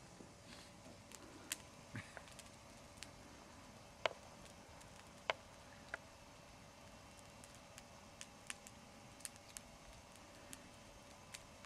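Near-quiet background with a faint steady hum and scattered light clicks and ticks, about a dozen at irregular intervals, the sharpest about four and five seconds in.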